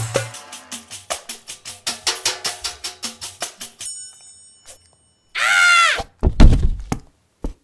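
Light cartoon music with a ticking beat that fades out. After a short pause comes a brief wavering high cry, then several heavy thuds: slip-and-fall sound effects.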